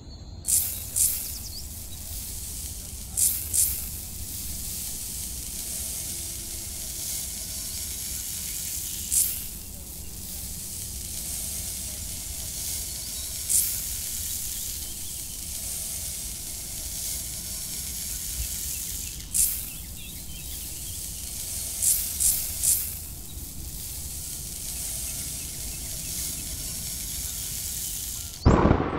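Small metal hand trowel scraping into sandy soil: about ten short, sharp scrapes at irregular intervals over a steady background hiss.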